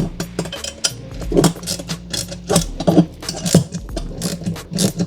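Small hand ratchet and bit clicking and clinking as they are handled and worked, irregular sharp metallic clicks about two or three a second.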